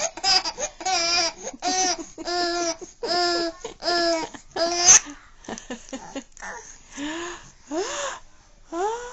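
A baby laughing at a sneeze: a run of about seven laughs, one every second or so, that then trails off into quieter, breathier sounds with a rising squeal near the end.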